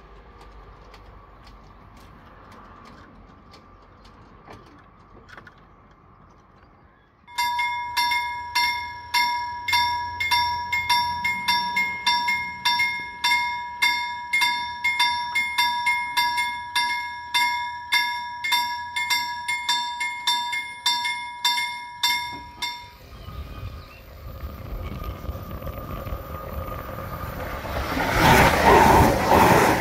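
Level-crossing warning bell ringing at a steady rhythm of about two strokes a second, warning of an approaching train. It starts suddenly about seven seconds in and stops some fifteen seconds later. Near the end an Öresundståg electric multiple unit runs through the crossing, its rushing and wheel noise building to the loudest sound.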